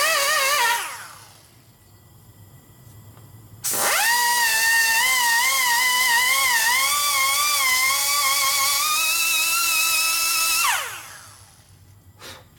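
Air-powered die grinder with a carbide tree burr, cutting aluminum in a cylinder head's exhaust port. It makes a high whine whose pitch wavers as the burr bites. It spins down in the first second, starts again about four seconds in, runs with a wavering pitch, and winds down with a falling pitch near the end, followed by a faint click.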